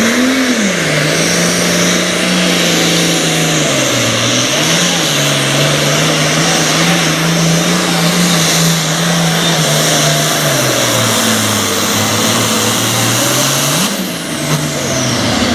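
Super Farm pulling tractor's diesel engine running hard under load during a pull. The engine pitch holds high but sags and recovers a few times, falling lower near the end and briefly picking up again.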